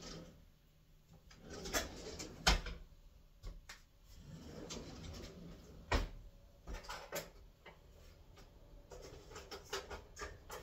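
A kitchen drawer being handled and rummaged through: utensils clinking and knocking, with sharper knocks about two and a half and six seconds in.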